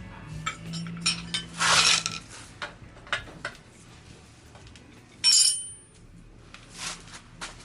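Metal hand tools and small metal parts clinking and clicking in irregular taps, with a scraping rush about two seconds in and a bright, ringing metallic clink about five seconds in.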